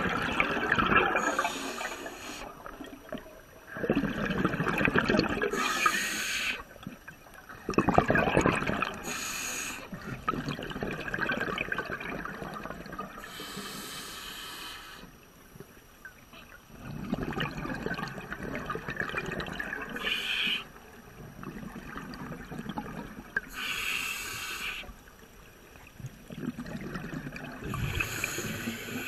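Scuba diver breathing through a regulator underwater: short hissing inhalations alternate with bubbling bursts of exhaled air, repeating every few seconds.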